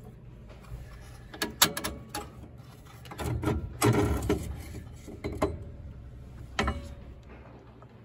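Metal clicks, scrapes and rattles from the oil burner's nozzle and ignition electrode assembly being worked loose and slid out of the burner tube. There is a busy stretch of rattling and scraping about three to four seconds in and a single sharp clack near the end.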